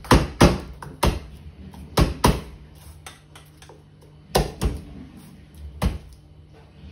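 Garlic cloves being pounded on a wooden cutting board: about eight sharp, irregular knocks, several coming in quick pairs.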